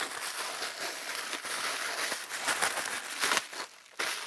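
Clear plastic bubble wrap crinkling and rustling as it is pulled open by hand, easing off briefly near the end.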